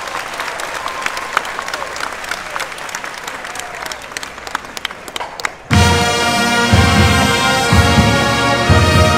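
Audience applauding and cheering. About six seconds in, a marching band's brass section bursts in loudly with held chords over heavy, repeated low notes.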